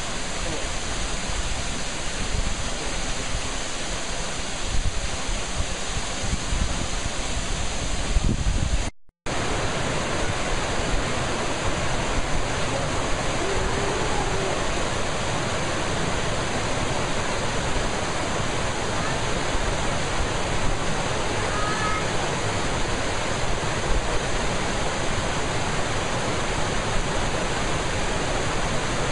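Steady rush of Horsetail Falls' water pouring down a cliff. After a brief cut to silence about nine seconds in, a small rocky creek rushes and splashes over stones.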